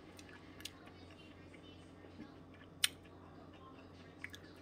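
Chewing close to the microphone: a person eating a pan-fried stinkhorn mushroom egg. A few sharp mouth clicks, one louder near the middle, over a low steady hum.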